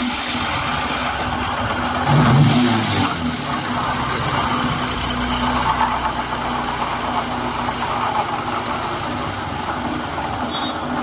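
Bajaj Discover 100M motorcycle's single-cylinder engine running very loud with a heavy, truck-like noise. It revs briefly about two seconds in, then settles back to a steady idle. The noise is the sign of broken crankshaft main bearings on both sides.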